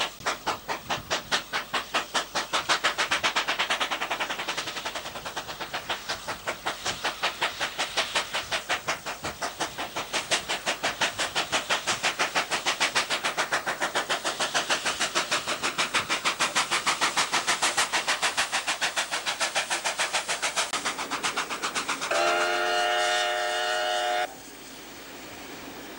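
New South Wales C38-class 4-6-2 steam locomotive 3801 pulling a passenger train, its exhaust beating in a rapid, even rhythm as it works. Near the end it gives a whistle blast of about two seconds, several notes sounding together, which cuts off sharply.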